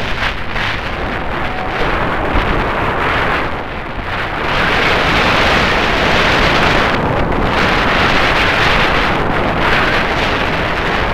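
Waterfall pouring: a loud, steady rush of falling water that swells and eases every few seconds.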